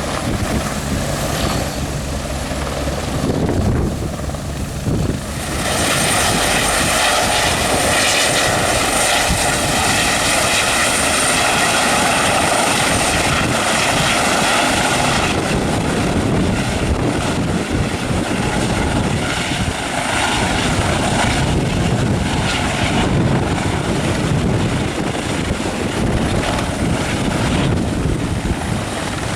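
Aerospatiale AS350B helicopter's single turbine and rotors running close by. A high turbine whine grows louder about six seconds in, holds for about ten seconds, then eases.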